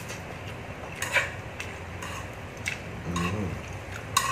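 Chopsticks and a metal spoon clicking a few times against the pan of an electric hot pot as instant noodles are picked up and stirred, with a short hum of a voice about three seconds in.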